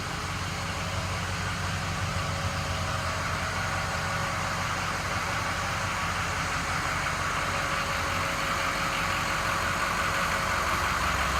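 Ford 6.0-litre Power Stroke V8 turbodiesel idling steadily.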